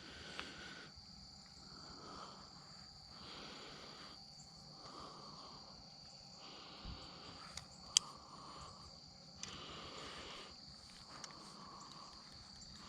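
Crickets and other insects calling, faint: a steady high trill throughout, with a lower rasping call switching on and off about every second. A few faint clicks stand out, the clearest about eight seconds in.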